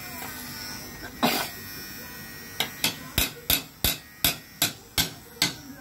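Sharp knocking: one louder knock a little past a second in, then a steady run of knocks at about two to three a second from about two and a half seconds in.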